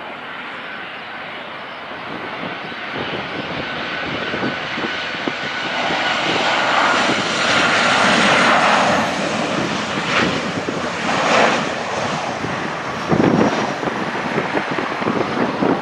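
Aeroplane engines during landing: a steady rushing noise that grows louder toward the middle, with a few sudden louder whooshes in the second half.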